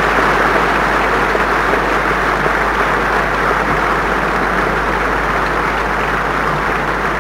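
Large audience in a big auditorium applauding steadily, a dense continuous clatter of thousands of hands, over a low steady hum.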